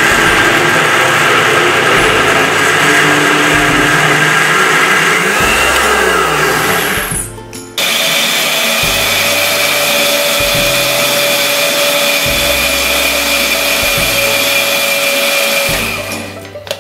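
Countertop blender running at full speed, churning milk cream toward butter: a steady motor whine that stops briefly about 7 seconds in, then starts again and winds down near the end.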